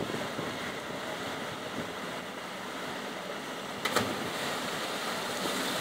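Steady rush of a small river cascade, with a single splash about four seconds in as a person's body plunges into the pool after jumping off a boulder.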